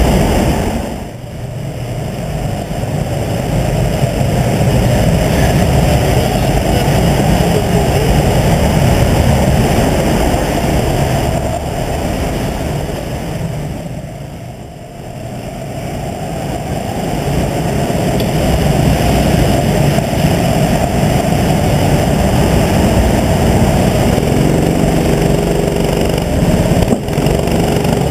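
Go-kart engine running loud, heard from the driver's seat, easing off to a quieter stretch about halfway through and then building up again as the kart pulls out onto the track.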